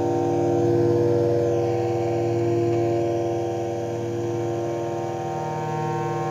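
Ciat-Lonbarde Rollz-5 analog synthesizer, four avdog oscillators through gong filters into two Cocoquantus delays in series, holding a dense droning chord of steady tones over a fast low buzz, swelling slightly about a second in.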